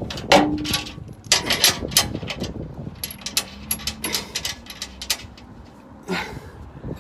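Irregular metal clicks and scrapes from a button-head bolt being turned by hand into a zinc-plated steel skid plate, with hands knocking against the plate.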